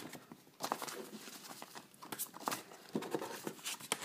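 Irregular light clicks and taps from handling a DVD box set and its packaging.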